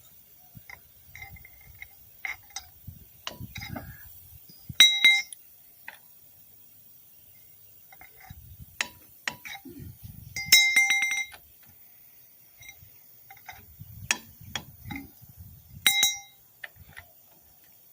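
Metal hand tools and brake parts clinking and knocking. Three sharper ringing clangs of the same pitch come about five, eleven and sixteen seconds in.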